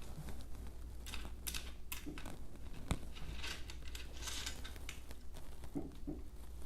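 Small clicks and scraping of a metal bracket and T-nuts being slid and positioned on a 3D printer's aluminium frame extrusion, busiest from about one to four and a half seconds in, with one sharper click about three seconds in. A steady low hum sits underneath.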